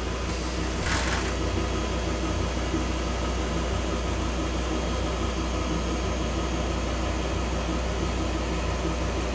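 Steady mechanical hum from a motorhome's leveling jack system as a jack retracts, lifting its rubber pad off the pavement. A short hiss comes about half a second in.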